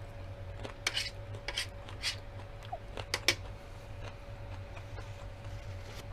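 Metal cutlery clinking against a metal baking tray several times, the loudest clink about three seconds in, with crunchy chewing of tortilla-chip nachos. A faint steady hum runs underneath.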